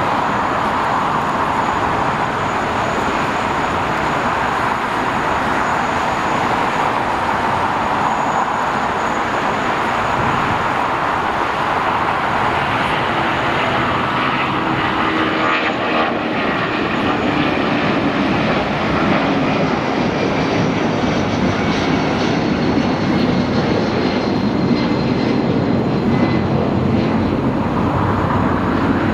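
Korean Air Airbus A380's four turbofan engines running at taxi power: a steady, loud jet roar, with a faint high whine coming in about halfway through.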